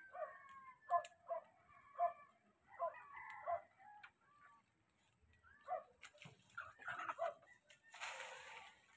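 Chickens clucking in short calls about every half second, with a brief rustle near the end.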